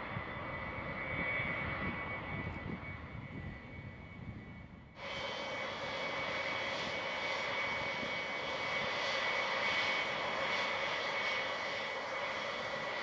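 Boeing E-3 Sentry's four turbofan engines running at taxi power: a steady jet engine noise with a thin high whine over it. About five seconds in the sound changes abruptly, becoming louder and fuller in the highs.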